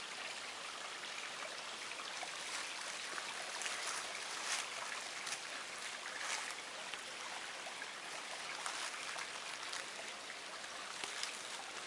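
Footsteps crunching through dry fallen leaves, in irregular crackles over a steady hiss.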